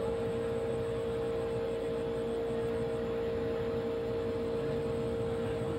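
A steady hum with a constant mid-pitched tone, over a low, even rumbling noise.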